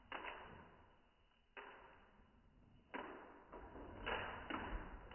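Slowed-down audio from a Shar-pei moving its head: five deep whooshing rushes, each starting sharply and fading over about a second.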